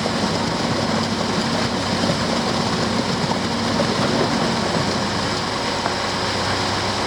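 Concrete pumper truck running steadily during a concrete pour, a constant engine-and-pump drone with a low hum.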